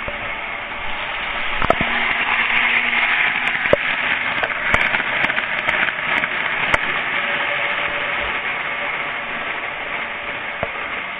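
Postwar Santa Fe model train running on its track: a steady rushing rumble of wheels and motor that swells as it comes close and eases away near the end, with scattered sharp clicks.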